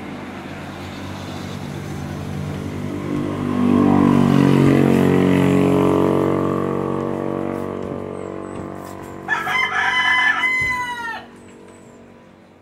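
A motor vehicle's engine grows louder as it passes and fades away over several seconds. Then, about nine seconds in, a rooster crows once, a call of about two seconds that drops in pitch at its end.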